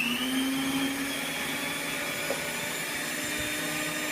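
Electric kitchen mixer running steadily, beating softened butter and vegetable shortening together; its motor hum rises a little in pitch in the first second as it comes up to speed.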